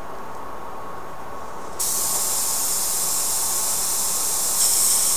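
Compressed air hissing out of a gravity-feed airbrush with its trigger pulled back, fed from a tank-type hobby compressor. The hiss starts suddenly about two seconds in and gets louder again near the end as the trigger is opened wide.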